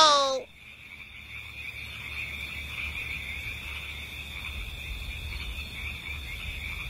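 Steady night chorus of crickets and frogs, an unbroken high chirring with a low rumble underneath.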